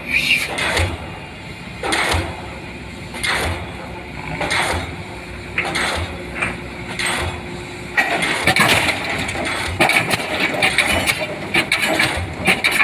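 Diesel pile hammer driving a pile, striking in a steady rhythm of about one blow every 1.3 seconds. About eight seconds in, the sound becomes louder and denser.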